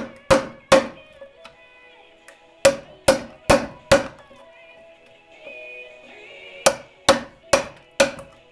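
Claw hammer striking a wood chisel to cut the end of a wooden stair tread: sharp blows in three quick runs, three, then four, then five, about two a second. Music plays faintly underneath.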